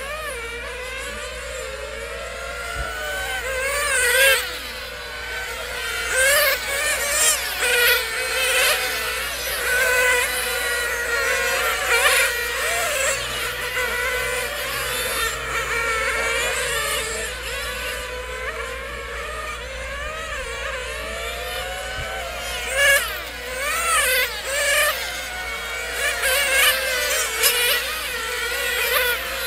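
Several radio-controlled on-road cars with small nitro glow-fuel engines racing, their high-pitched whines overlapping and constantly rising and falling in pitch as they accelerate and brake. The sound swells each time cars pass close.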